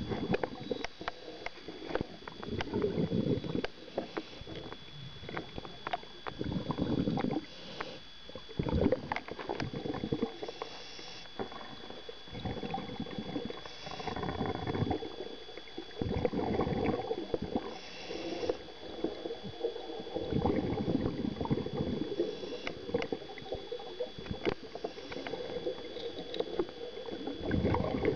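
Scuba diver breathing through a regulator underwater: bursts of exhaled bubbles gurgling and rumbling every two to four seconds, with quieter inhalations between.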